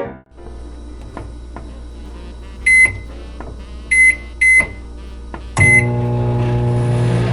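Microwave oven being set and started: a few clicks and four short keypad beeps, then it starts running with a steady, louder hum.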